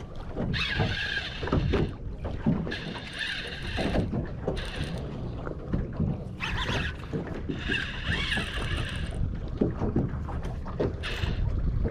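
Baitcasting reel drag buzzing in repeated bursts of up to a second or so as a hooked fish pulls line off the spool during the fight, the fish likely a big black drum. Wind and water noise run underneath, with occasional low knocks.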